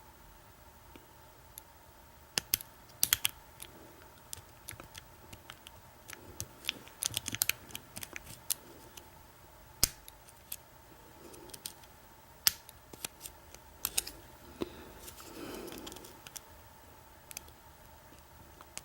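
Irregular small metallic clicks and ticks of a lock pick and tension wrench working the pin stack of an American 1100 padlock during single-pin picking. The clicks come in quick clusters, the densest a few seconds in and again around the middle, with a brief softer rubbing sound about three-quarters through.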